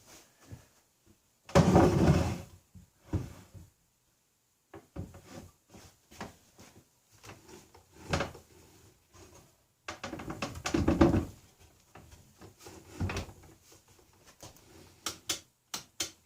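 Irregular knocks, clicks and clunks of hard objects being handled and set down, with two louder clattering bursts about two seconds in and again around ten seconds in.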